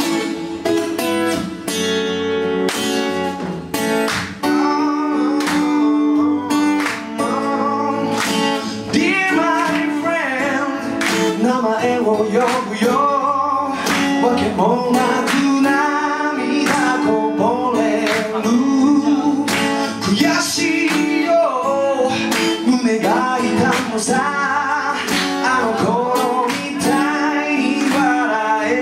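A man singing to his own strummed acoustic guitar. The guitar plays alone at first, and the voice comes in about four or five seconds in.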